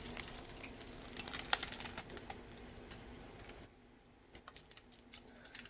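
Faint, irregular light clicks and taps over a low hiss; the hiss drops away a little over halfway through.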